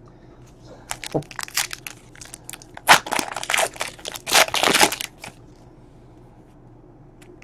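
Crinkling and tearing of a trading-card pack wrapper as the pack is ripped open and the cards pulled out, in a run of crackly rustles that stops about five seconds in.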